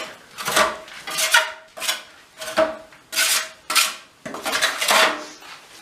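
Metal trowel scraping across a wall in quick repeated strokes, spreading and smoothing a fresh coat of plaster or filler, with a faint metallic ring on each stroke.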